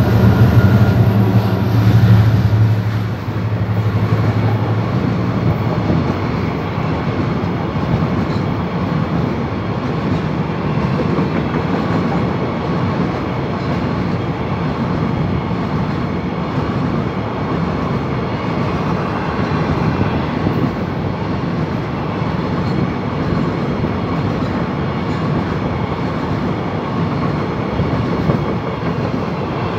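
Botswana Railways diesel freight locomotives passing close by, their low engine drone fading out in the first few seconds. Then a long train of empty high-sided coal gondola wagons rolls past with steady wheel-on-rail rumble and clickety-clack.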